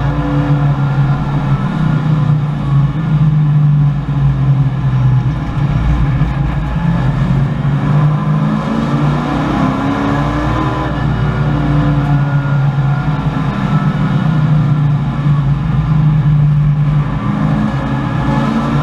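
Chevrolet Camaro race car's V8 engine heard from inside the cabin, its revs rising and falling repeatedly under acceleration and lifts.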